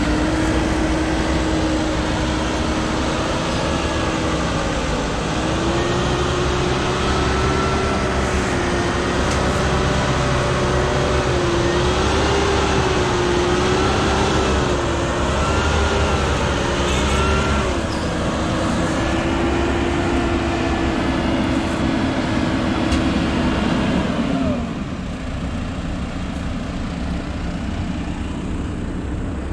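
Heavy diesel engine of a working machine running at high revs, its pitch wavering up and down under changing load for a stretch, then dropping to a lower, quieter run about 24 seconds in.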